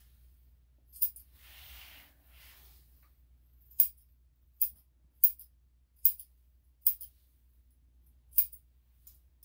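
Grooming scissors snipping the hair around a small dog's paw: about seven sharp metallic snips at irregular intervals of roughly a second, with a soft rustle shortly after the first.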